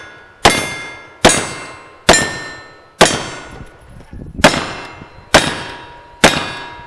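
Revolver shots at steel targets, seven in all at roughly one a second, with a longer gap after the fourth. Each shot is followed by the ringing clang of the struck steel plate.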